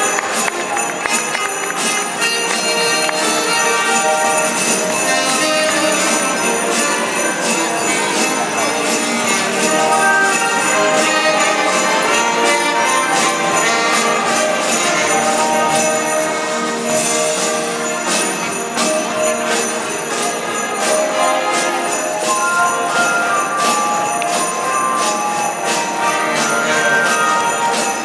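Live band music with jingle bells shaken in a steady rhythm over drums and keyboard.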